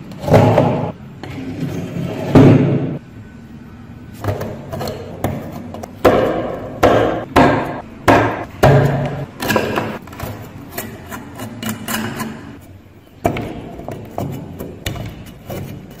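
A knife blade digging and scraping into a crust of caked, dried mud, which cracks and crumbles away in a run of crunchy scrapes, the loudest about half a second in and again after two seconds.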